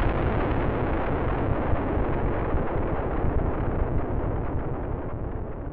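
The deep, noisy rumble of an explosion dying away, its higher part fading first and the whole slowly getting quieter.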